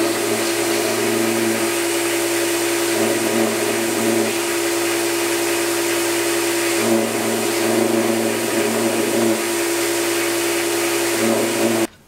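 Belt grinder running, its abrasive belt grinding the metal handle end of a knife: a steady motor hum with grinding noise that swells and eases as the piece is pressed on and eased off. It stops abruptly near the end.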